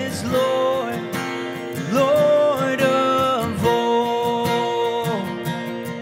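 A man singing a worship song with long held notes over a strummed acoustic guitar.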